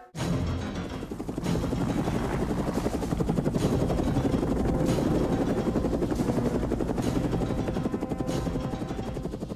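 Helicopter flying, its rotor beating in a steady, rapid chop, with music playing over it.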